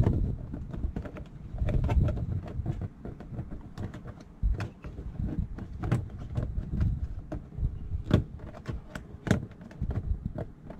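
Irregular clicks and taps of a plastic mud flap and its screw being handled and pushed into place against a car's plastic wheel-well liner, over a low rumble. Two sharper clicks come late.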